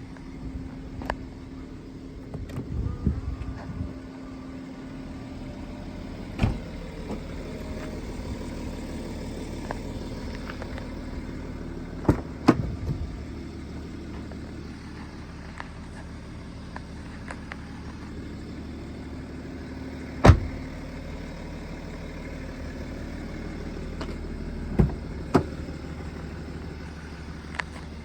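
Steady running hum of a BMW 335d Touring, broken by a series of sharp clicks and thumps from the car's doors and fittings, the loudest about twenty seconds in.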